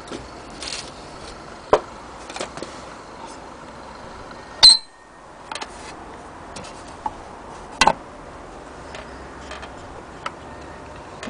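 Portable wind-up gramophone being handled: scattered light clicks and knocks, with one sharp metallic click about four and a half seconds in.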